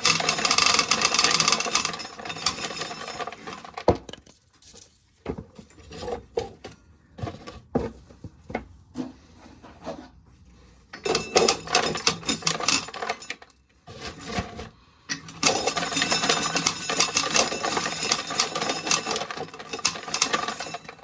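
Corn sheller shelling ears of corn, a dense rattling clatter of kernels being stripped off, in three spells. Scattered knocks and clicks fill the gaps between them.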